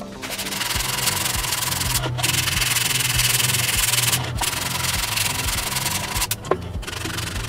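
Hand sanding of a small plywood part with a sanding block: a continuous rasping rub with two brief pauses, stopping shortly before the end.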